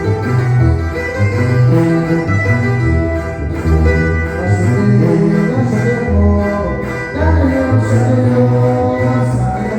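Live band music carried by a tuba playing a low bass line that steps from note to note, with melody instruments above it.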